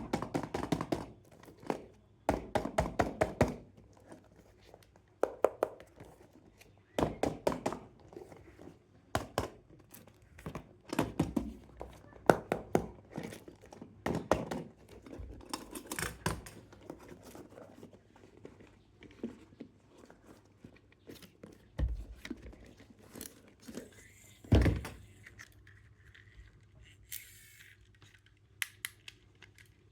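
Hands unboxing a toy: cardboard and plastic packaging knocked, rubbed and pulled apart, a long irregular run of clicks and thunks with some tearing and crinkling.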